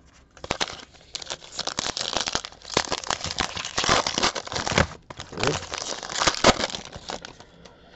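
Shiny wrapper of a 2017 Diamond Kings baseball card pack crinkling and tearing as it is ripped open by hand. The dense crackling starts about half a second in, eases briefly around the middle, and picks up again.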